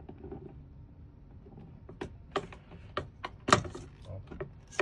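Sharp clicks and knocks of an electronic door lock's metal and plastic parts being handled and fitted against a door, a handful spread over the last three seconds with the loudest about three and a half seconds in.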